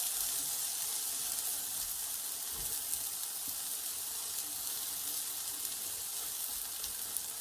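Small banana-and-oat pancakes sizzling in hot oil in a frying pan: a steady frying hiss, with a faint click near the end.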